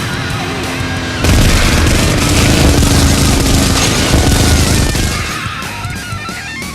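Background music with a loud burst of battle sound effects, gunfire and booms, laid over it from about a second in until about five seconds, after which the music carries on more quietly with wavering electronic tones.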